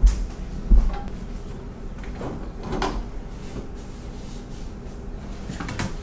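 Knocks and clunks of objects being handled at a stainless steel kitchen sink, with two sharp thumps within the first second and softer knocks and rustling later, as a cleaning cloth and a soap bottle are picked up.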